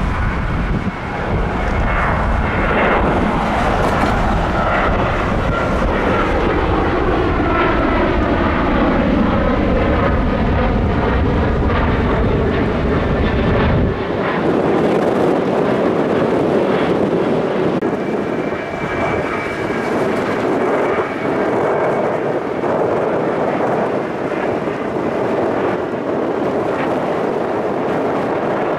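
Twin turbofan engines of a Boeing 737 climbing out after takeoff: a steady jet rumble with an engine whine that falls in pitch as the plane passes, with wind buffeting the microphone. About halfway through, the sound cuts to a second climbing 737, a steadier jet drone with much less wind rumble.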